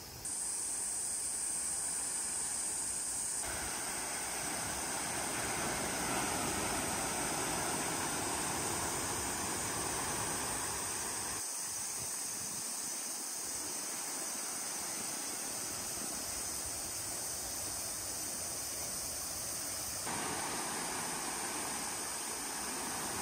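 Sea waves washing in over rocks and pebbles, a steady rushing noise that swells and eases in steps, over a steady high-pitched drone.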